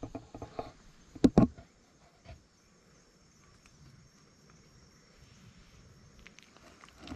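Two short thuds in quick succession about a second in, then a quiet outdoor background with a faint, steady, high-pitched tone.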